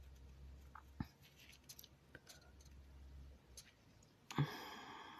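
Spoon faintly scraping and clicking against a mixing bowl while stirring mayonnaise-based coleslaw dressing, with a short, louder rustle about four seconds in.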